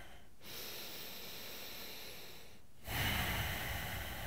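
A man breathing deeply while holding a yoga pose: two long, audible breaths, the second louder and starting about three seconds in.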